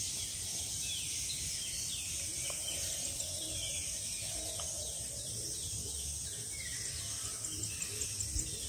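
Forest ambience: insects droning steadily at a high pitch while a bird repeats short falling chirps, over a low rumble.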